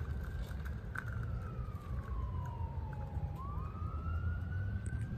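An emergency-vehicle siren wailing in a slow cycle: its pitch falls gradually for about three seconds, then rises again near the end, over a low steady rumble.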